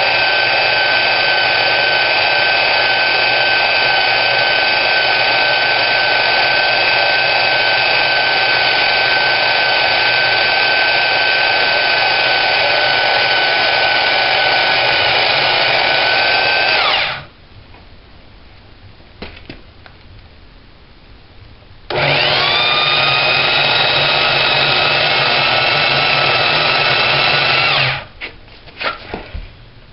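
Portable band saw cutting through the steel tube of a Dana 44 front axle, running steadily with a whine. It stops about seventeen seconds in, winding down. About five seconds later it starts again with a rising whine, runs on, and stops near the end, followed by a few brief bursts.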